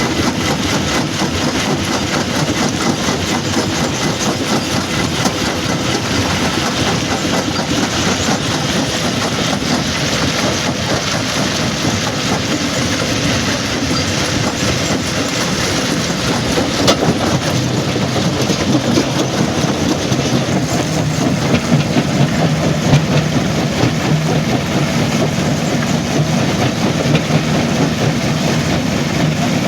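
Stone crusher plant machinery running: a loud, continuous mechanical clatter of rock and metal over a low engine rumble, which grows heavier about two-thirds of the way through.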